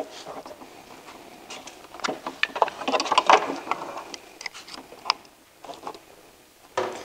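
Plastic electrical connectors of a snowmobile power-up cable being handled and plugged together by hand: a run of small clicks, scrapes and rustling, busiest about three seconds in.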